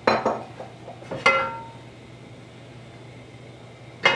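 A metal frying pan clinking three times: once at the start, again about a second in, and once near the end, each a sharp knock with a short metallic ring.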